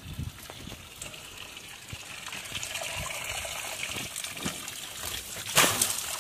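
Backed-up sewage trickling and running out of an open sewer pipe cleanout, then spraying out in a sudden loud splash about five and a half seconds in as a gloved hand pushes the cap back onto the opening.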